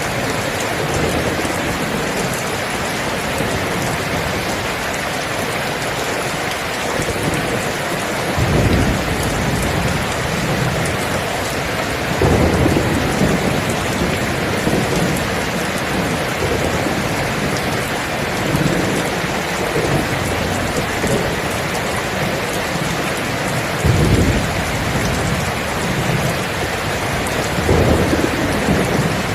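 Steady heavy rain with low rolls of thunder breaking through it, about four times.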